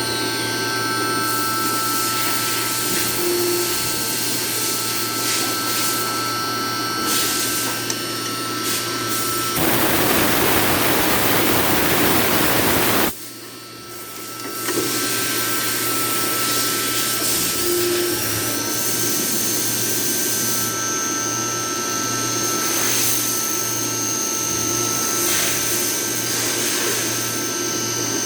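CNC milling machine running and cutting under flood emulsion coolant, with a steady whine of several fixed tones. About ten seconds in, a louder hiss covers it for about three seconds and then cuts off suddenly, the sound drops away and builds back over the next two seconds, and from about eighteen seconds a high tone rises and then holds.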